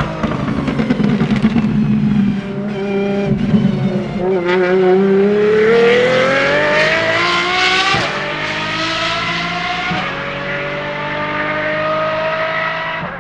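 Apollo Intensa Emozione's naturally aspirated 6.3-litre V12 at low revs with a run of sharp exhaust pops, then accelerating hard, the revs climbing. Two quick upshifts of its sequential gearbox come about eight and ten seconds in, each followed by the engine pulling up again.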